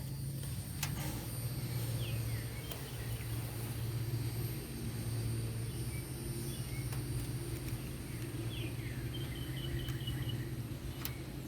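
A steady low rumble, with birds chirping in short falling calls about two seconds in and again near the end, and a few light clicks.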